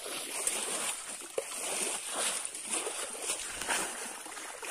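Water being bailed by hand with metal bowls: repeated irregular splashes and sloshes as the bowls dip in and throw water out, over a steady rush of water pouring through a fishing net.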